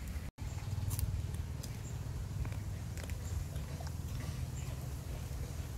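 A man chewing crunchy young mango dipped in spicy shrimp-paste sauce: scattered small crunches and mouth clicks over a steady low rumble. The sound cuts out for a moment just after the start.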